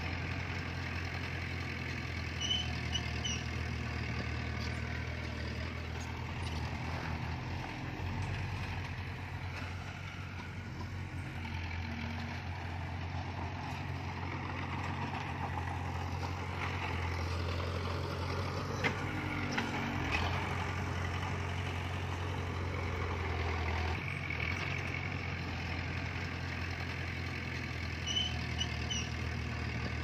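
Heavy construction machinery's diesel engine running steadily with a low, even drone. A short, high double chirp sounds twice, once near the start and once near the end.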